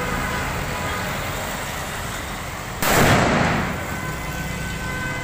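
A Diwali firecracker ('bomb') explodes with one loud bang about three seconds in, after its fuse sparks on the ground; the blast fades over about a second.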